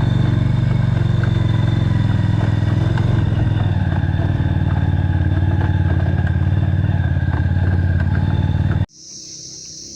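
A motorcycle engine running steadily at an even pitch. About nine seconds in it cuts off abruptly, and a steady high chirr of insects takes over.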